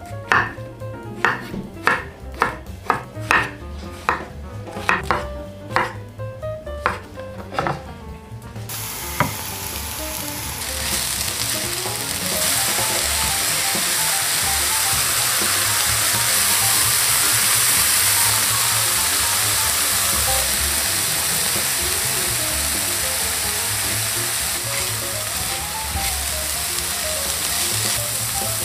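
Chef's knife slicing button mushrooms on a wooden cutting board: about a dozen even strikes, roughly one and a half a second. About nine seconds in, chopped mushrooms and onion in hot oil in a frying pan begin to sizzle, grow louder a couple of seconds later, and keep a steady sizzle as they are stirred with a spatula.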